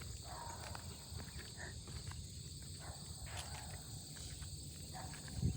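Soft footsteps and faint scuffs over a steady high-pitched drone, with a single low thump near the end.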